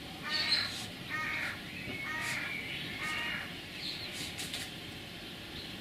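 A bird calling in a series of about four short, harsh calls in the first three and a half seconds, with a few faint high chirps of small birds.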